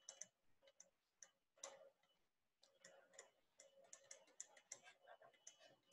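Very faint, irregular light taps and clicks of a stylus tip on a tablet screen during handwriting, a few to several a second.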